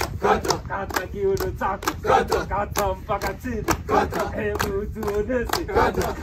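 A group of men singing and chanting together, keeping time with a steady rhythm of hand claps.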